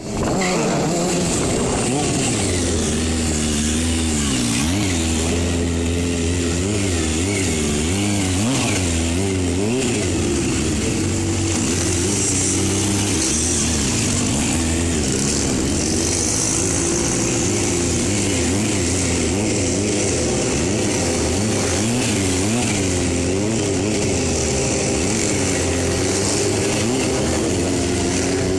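Kawasaki ZX-6R 636 sport bike engine held on the throttle through wheelies, its revs rising and falling every second or so without a break.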